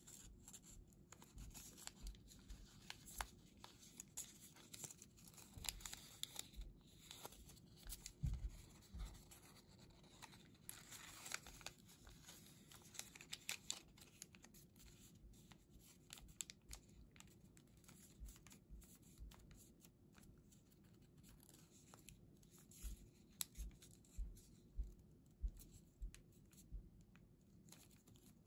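Faint rustling and crinkling of origami paper being folded and pinched into shape by hand, with scattered small clicks and a busier crinkly stretch a little before the middle.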